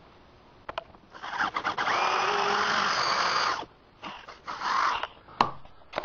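Power drill boring the second hole for a doorknob into a wooden door about 2 inches thick. After a couple of clicks the drill runs under load for about two and a half seconds, stops, then runs again for about a second, followed by a sharp click.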